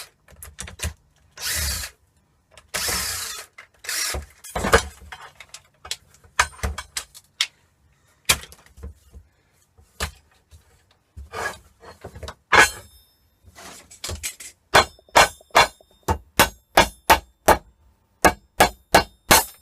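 Hand tools working apart the plastic handle of a MIG welding torch. There are scraping, prying noises in the first few seconds, then scattered clicks and knocks, and near the end a steady run of sharp clicks, about two to three a second.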